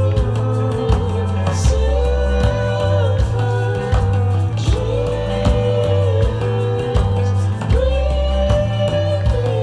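Indie rock band playing live: a singing voice holding long notes over electric guitar, bass and drums.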